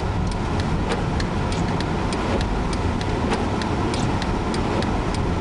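Steady rumble of a car driving through a blizzard, heard from inside, with many sharp irregular ticks, several a second.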